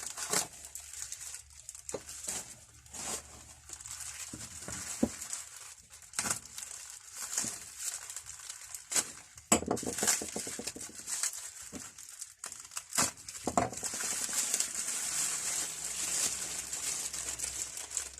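Wrapping being crumpled and pulled off a parcelled item, with scattered sharp clicks and knocks of handling; the loudest knock comes about halfway through.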